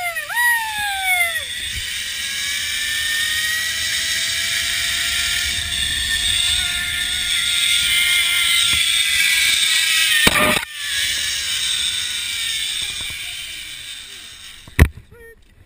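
Zip line trolley pulleys whirring along the steel cable: a high whine that swoops at the start, then holds a steady pitch over a rushing hiss and fades as the ride slows. One sharp clack near the end.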